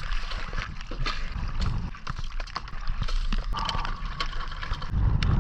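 Underwater sound of a scuba diver in a river: a steady low rumble of current and bubbles, with many small clicks and knocks throughout and a louder low surge near the end.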